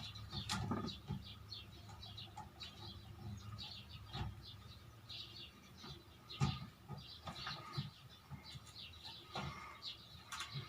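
Small birds chirping repeatedly in the background, with a few sharp knocks and clicks from plastic fan parts being handled and fitted.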